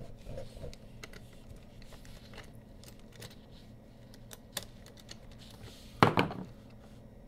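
Light plastic clicks and taps from the carriers of a motorized curtain track being handled and slid apart, with a louder clattering knock about six seconds in. A faint steady hum underlies it.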